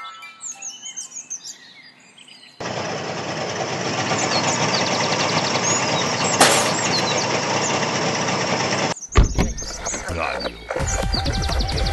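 Sound-effect outdoor ambience with birds chirping. About two and a half seconds in, a loud, even noisy background cuts in suddenly. About nine seconds in, a low, pulsing bus engine comes in and keeps running.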